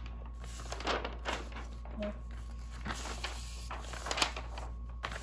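Pages of a paper instruction manual being flipped: several quick paper rustles and swishes, the loudest a little past four seconds in.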